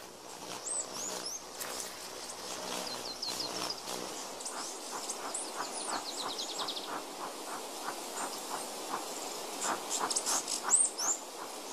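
Tropical forest sounds: many short, high, arching bird chirps and a fast run of falling notes, over a steady background of insects and repeated short clicking calls. The loudest chirps come near the end.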